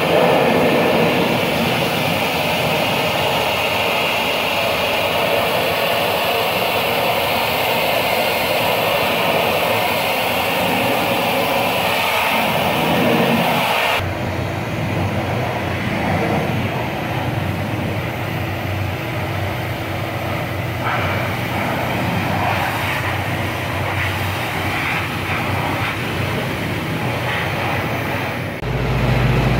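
Pressure washer spraying a jet of water against a tractor's dual tires: a steady loud hiss with a low mechanical hum. The sound changes abruptly about halfway through, after which the hum is more prominent beneath the spray.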